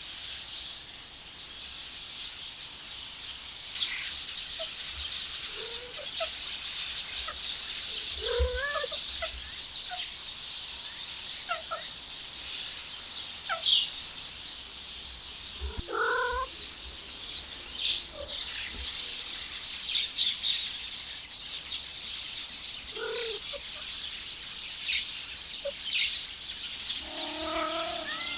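Cats calling now and then with short meows, the clearest about eight and sixteen seconds in, and a fuller, drawn-out meow near the end. A steady high hiss sits underneath.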